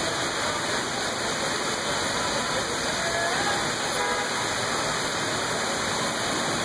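Heavy rain falling steadily, an even hiss with no break. Faint short tones sound now and then behind it.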